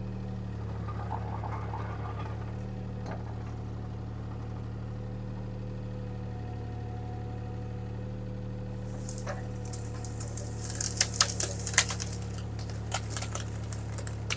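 Bobcat T300 skid steer's diesel engine running steadily. From about nine seconds in there is a run of sharp crackles and snaps as the grapple works into branches and brush.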